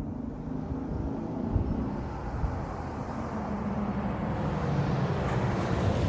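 1997 Ford Explorer's 4.0-litre OHV V6 running through a Flowmaster exhaust, growing gradually louder.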